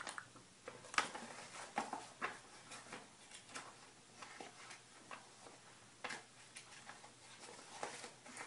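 Pages of a paper mini catalog being turned and flipped by hand: intermittent soft rustles and page flaps, the sharpest about a second in.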